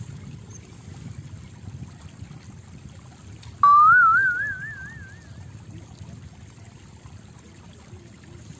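A sudden loud whistle-like tone about three and a half seconds in, rising in pitch with a quick, even wavering and fading out over about two seconds, over a low steady rumble.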